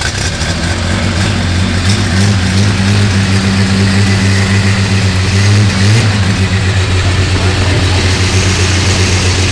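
Holden 161 straight-six engine running at a steady idle, just after catching on a cold start.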